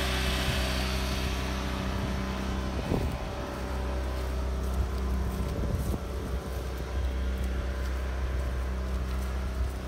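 An engine running with a steady, low, even hum, with a few small knocks.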